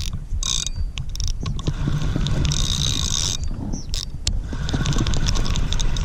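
Fishing reel clicking and ratcheting rapidly as line is worked on a hooked alligator gar, with a low rumble underneath.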